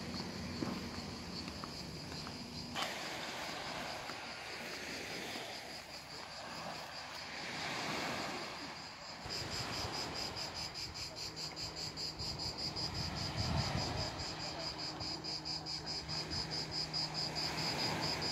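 Insects chirring in a steady high-pitched buzz, which turns into a fast pulsing drone about halfway through.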